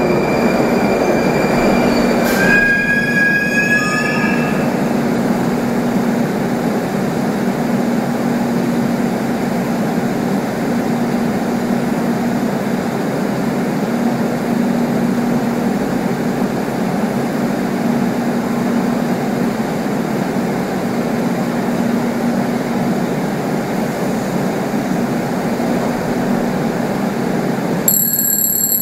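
Rusich metro train braking into the platform: a high wheel squeal and a falling motor whine, ending with a click as it comes to a stop about two and a half seconds in. The train then stands with a steady, slowly pulsing hum. A sharp high beep starts right at the end.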